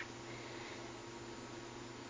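Steady background hiss with a low, even hum: room tone, with a faint click right at the start.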